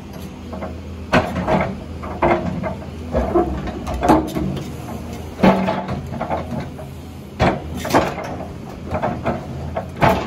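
Heavy construction machinery, such as an excavator, running steadily while placing rocks, with irregular knocks and scrapes of stone on stone. The loudest knocks come about a second in, at four, five and a half, seven and a half to eight, and ten seconds.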